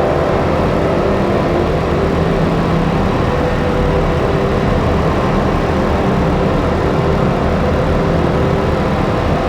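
Slowly evolving electronic drone from a Make Noise Strega and a Wingie, layered with looped drone passes. It is dense and steady, with several held tones of shifting pitch over a low, noisy rumble.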